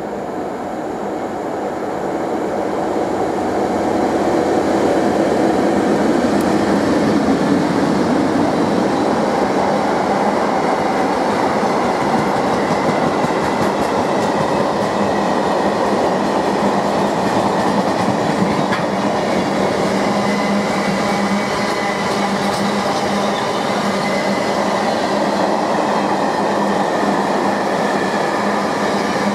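GB Railfreight Class 92 electric locomotive and a long train of empty car-carrier wagons passing close by, the steel wheels rolling along the rails. The sound builds over the first few seconds as the train draws near, then holds at a steady rumble as the wagons run by.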